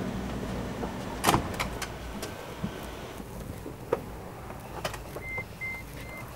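Rear door of a Mercedes G-Class SUV being opened: a sharp click of the latch about a second in, then a few lighter knocks. Near the end, a high beep repeats several times.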